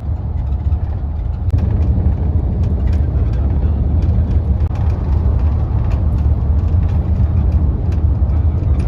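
Steady, loud low rumble and rushing noise of a moving vehicle, with faint ticks.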